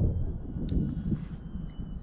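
Wind buffeting the microphone: a gusty, uneven low rumble, with one faint click under a second in.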